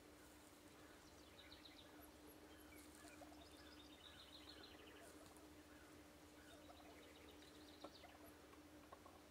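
Near silence: faint small-bird chirps and short trills a few times over a low steady hum, with one soft click near the end.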